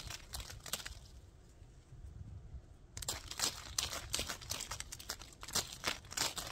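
Rapid, scratchy brushing strokes rubbing right against the microphone, several a second. They stop for about two seconds a second in, then carry on.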